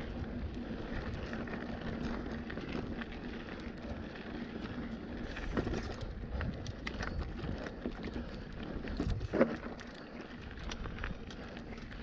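Mountain bike ridden along a dirt trail: a steady rush of tyre noise with frequent small rattles and knocks from the bike, and wind on the microphone. A louder clunk comes about nine seconds in.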